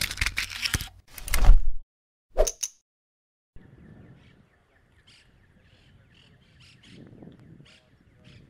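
Logo-intro sound effects: a few loud swishes and a deep thud in the first three seconds, then a short silence. After the cut comes faint open-air background with scattered bird chirps.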